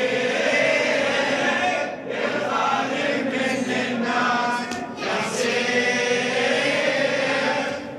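Several men chanting together in unison, a devotional chant, with short breaks about two and five seconds in.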